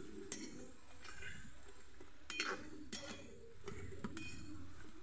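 Metal slotted spatula clinking and scraping against an iron karahi as pitha are turned in hot oil, a few short clinks over the faint sizzle of frying.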